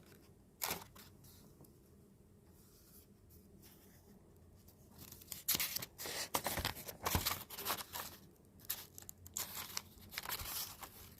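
Handling noise: a single click near the start, then from about five seconds in a quick, irregular run of rustling and tearing sounds, like packaging being torn open and handled.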